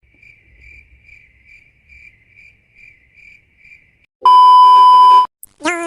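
Faint, high chirping pulses about twice a second for about four seconds, then a loud steady beep tone lasting about a second. Just before the end a loud horn blast starts, the fake truck horn of the prank.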